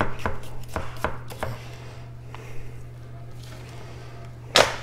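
A 240 mm kiritsuke gyuto chef's knife chopping on a cutting board, with a quick run of about six cuts over the first second and a half. Then a pause, and one louder knock near the end.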